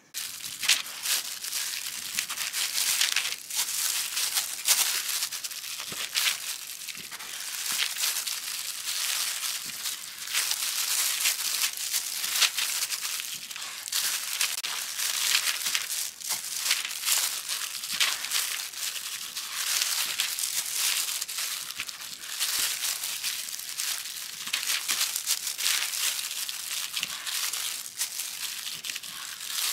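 Food frying in hot oil in a pan: a steady sizzle thick with small crackles and pops.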